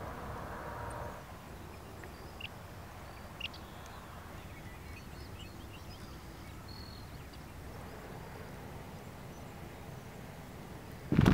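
Quiet outdoor ambience with a few faint, short bird chirps. Right at the end, a sudden loud rush of wind hits the microphone.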